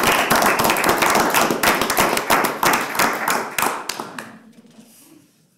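Applause: a roomful of people clapping, thinning out and dying away about four to five seconds in.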